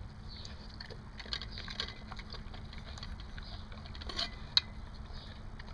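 Dog eating from a stainless steel bowl: wet chewing and crunching with small clicks of teeth and tongue against the metal, and one sharp clink about four and a half seconds in.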